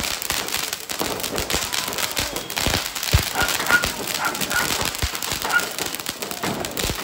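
Ground spark-fountain firework spraying sparks: a steady hiss full of rapid crackling pops. A few short high squeaks sound over it in the middle.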